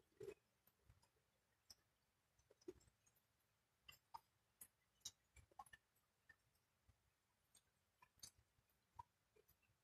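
Near silence broken by faint, irregular ticks and plinks, a few a second, of water dripping onto wet ground after rain.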